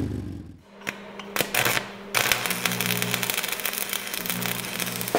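Background music with held low chords, starting about two seconds in after a few sharp clicks.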